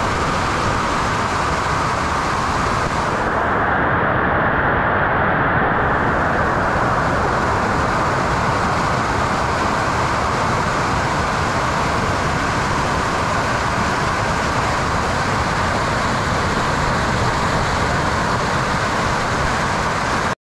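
Water rushing and churning down the stepped overflow of a dam, close by: a loud, steady wash of white-water noise that cuts off suddenly near the end.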